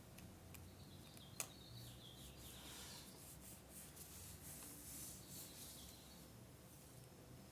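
Faint rubbing and rustling of paper being handled and pressed down during scrapbooking, with one sharp click about one and a half seconds in.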